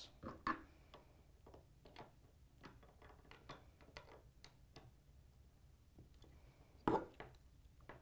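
Blue plastic MC4 spanner tools clicking and ticking against an MC4 connector's cap nut as it is tightened, a run of faint, irregular small clicks. A louder knock comes near the end.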